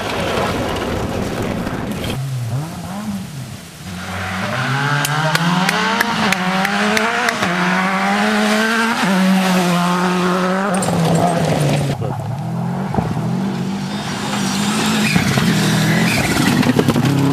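Rally cars, a Subaru Impreza and a Ford Escort Cosworth, driven hard on gravel: engines revving up and falling back through gear changes over a noisy rush of tyres on loose surface, with a string of sharp clicks in the middle.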